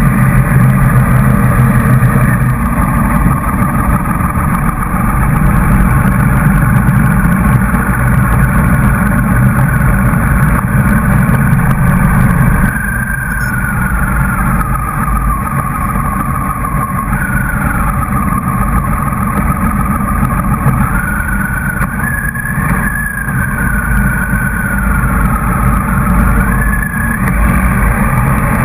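Motorcycle engine and wind noise picked up by a camera mounted on the riding bike, loud and steady. About halfway through, a whining tone starts to rise and fall in pitch.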